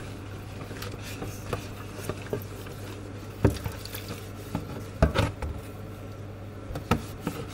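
A cloth scrubbing a plastic bowl in soapy bleach water in a stainless steel sink, with wet squishing and sloshing, over a steady low hum. In the second half the bowl knocks against the sink three times.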